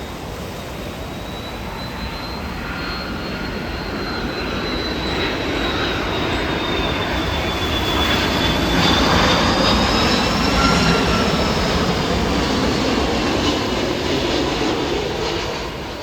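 Airplane flying past, its engine noise and a high whine building to a peak about two-thirds of the way through, then easing off.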